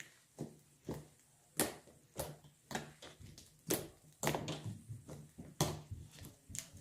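Slime being kneaded and squeezed by hand, giving a series of short, sharp clicking pops, about one or two a second.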